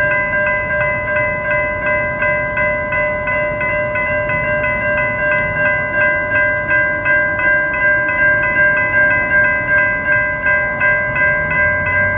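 Railroad crossing's electronic bells (General Signals Type 3 and Siemens electronic bells) ringing steadily at about three strokes a second, the warning of an activated crossing. A low rumble builds near the end.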